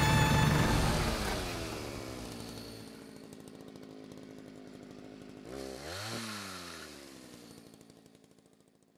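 Chainsaw engine revving and winding down. It revs up and down once more a little under six seconds in, then fades out.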